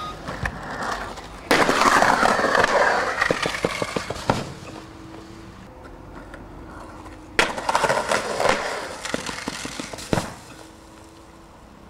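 Skateboard wheels rolling over concrete with sharp clacks of the board, in two runs that each start suddenly. A single knock comes near the end, as the skater bails.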